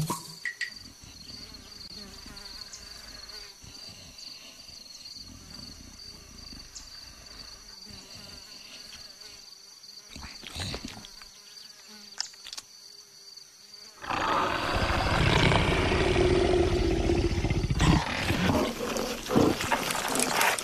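Animated fat leopard vocalising with a big-cat growl, loud, starting about 14 seconds in and lasting about four seconds, as it slips and rolls round the branch. A few knocks follow near the end. Before it there is only a faint, steady background drone.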